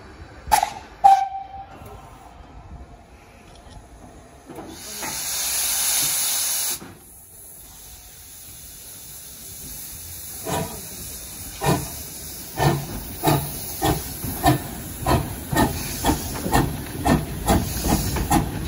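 Great Western saddle tank steam locomotive No. 813 starting away: a brief whistle toot about a second in, a loud hiss of steam lasting about two seconds, then exhaust chuffs that begin slowly and quicken to about two a second as the engine gets under way.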